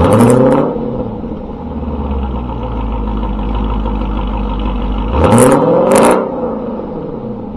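Dodge Durango R/T's 5.7 L Hemi V8, fitted with a Greene 'Thump' cam, long-tube headers and a Borla S-type exhaust, being revved in free-rev blips. One quick rev right at the start, settling back to idle, then a longer, louder rev about five seconds in that drops back to idle.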